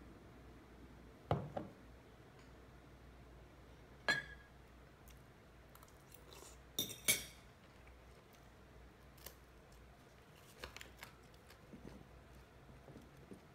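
Metal fork clinking against a ceramic bowl and plate while eating: a few sharp clinks a few seconds apart, the loudest about a second, four seconds and seven seconds in, with softer taps later.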